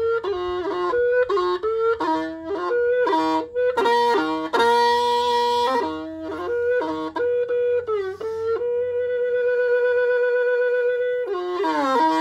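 Background music: a single melody line moving in quick steps between notes, then holding one long note for about three seconds near the end.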